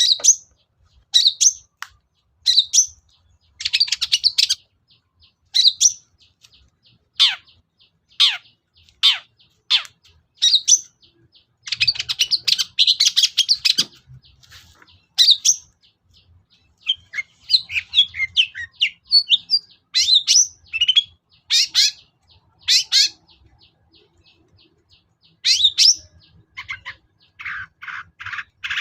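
Long-tailed shrike (cendet) singing loudly. Sharp, high calls drop steeply in pitch about once a second, broken by harsh, dense chattering runs and varied quick phrases.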